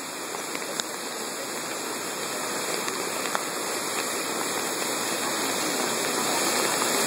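Boulder Creek in flood: a torrent of whitewater rushing in a steady, dense noise that grows steadily louder.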